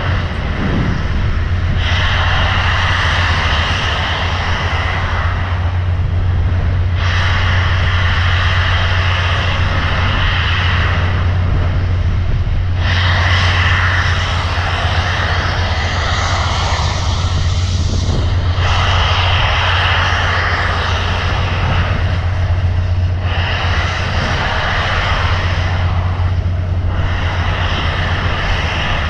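Steady loud roar of a train in motion, with a constant low hum beneath it; the higher part of the roar dips briefly every five or six seconds.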